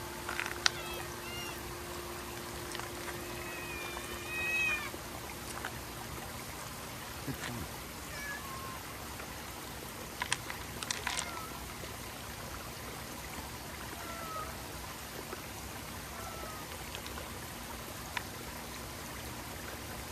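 Stray cats meowing several times, short bending calls with the loudest and longest about four seconds in. Beneath them a steady trickle of water runs throughout, and a few sharp clicks come around ten to eleven seconds in.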